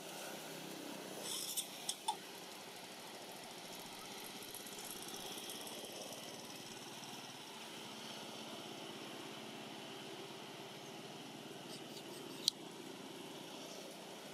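Faint, steady outdoor background hum and hiss, with a few sharp clicks about two seconds in and one more near the end.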